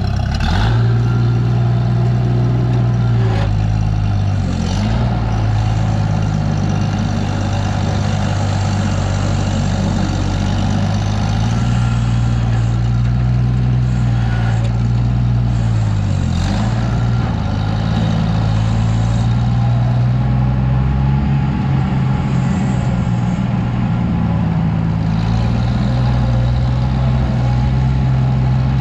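Oliver farm tractor engine running steadily as the tractor is driven, with the engine speed dipping briefly about four seconds in and again about sixteen seconds in.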